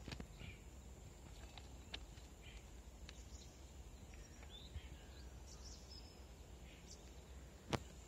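Faint steady low rumble with scattered short bird chirps, one of them rising, and a few sharp clicks; the loudest click comes near the end.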